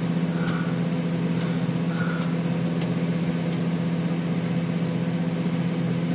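Microwave oven running with a steady, even hum, with a dead compact fluorescent lamp inside it; a few faint ticks come in the first few seconds.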